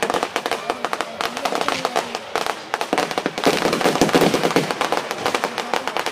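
Fireworks crackling: a dense, continuous run of rapid sharp pops and crackles, growing denser and louder about three and a half seconds in.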